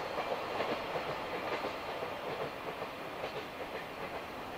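Freight train's wheels clattering over the rail joints as it moves away, the sound slowly fading.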